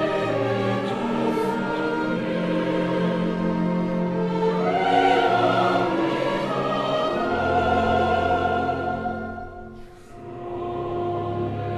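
Opera chorus singing held, slow chords with orchestra, swelling about halfway through and dropping away briefly near the end before coming back in.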